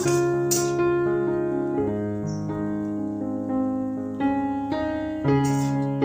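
Background piano music: slow, sustained notes and chords that change every second or so.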